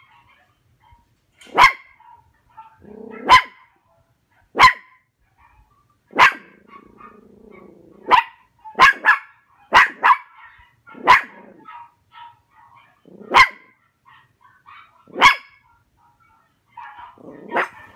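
A dog barking at a dachshund on the TV: about a dozen sharp single barks at irregular intervals, a couple of them close together around the middle, with low growls leading into several of them.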